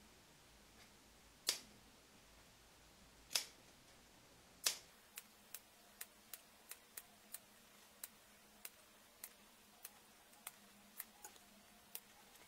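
Scissors snipping into the seam allowance of sewn padded fabric: three separate cuts in the first five seconds, then a run of short, light clicks about two a second.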